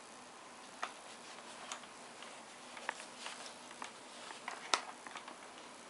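Handling noise from a headset and its cable being moved about close to the microphone: a scattered run of light clicks and taps at uneven intervals, the sharpest about three-quarters of the way through, over a steady faint hiss.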